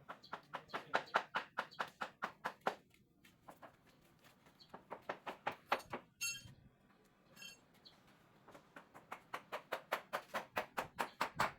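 Rapid rhythmic tapping, about six or seven strokes a second, in three runs with short pauses between.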